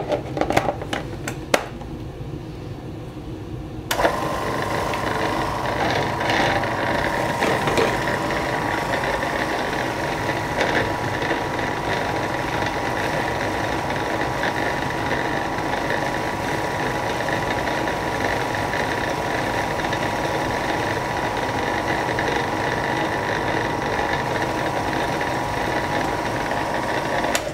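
A few clicks as the food processor is set, then from about four seconds in its motor runs steadily with a constant whine, chopping wild garlic leaves finely; it stops just before the end.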